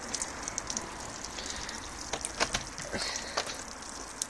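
Water draining and spattering from a homemade hose-and-sprinkler rig that has just been turned off: a steady hiss with scattered drip-like ticks.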